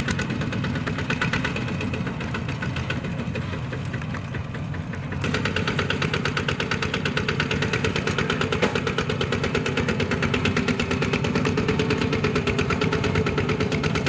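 Single-cylinder diesel engine of a two-wheel walking tractor running with a fast, even beat, louder from about five seconds in.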